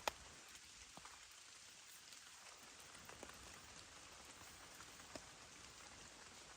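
Faint steady rain with scattered individual drops ticking down, opening with one sharp click.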